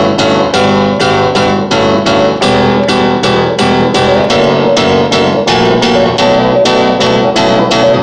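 Balearic techno playing from vinyl records through DJ turntables and a mixer: a continuous track with sustained pitched chords and a steady pulse of about four strokes a second.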